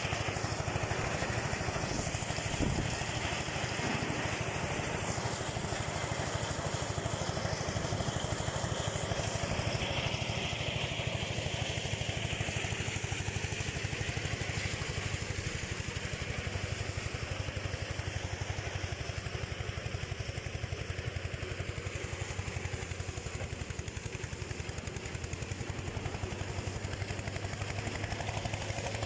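Engine-driven rice thresher running steadily, with one short knock a little over two seconds in.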